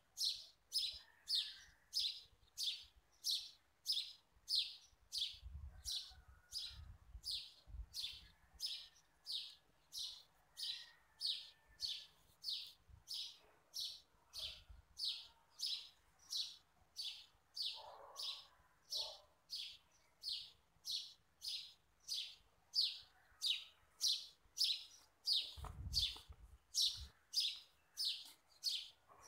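A bird chirping over and over at an even pace, about two short, high chirps a second. Soft rustles and low knocks of sheets being handled on a table come through now and then, the biggest of them about 26 seconds in.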